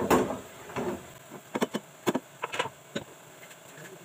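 Short, sharp clicks and taps at irregular intervals from fingers working masala stuffing into a small round tinda gourd. The loudest comes right at the start.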